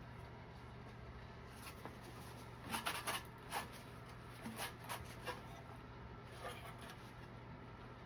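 Light clicks and taps of tools and parts being handled during a metal toolbox build, in a short cluster about three seconds in and another about five seconds in, over a faint steady hum.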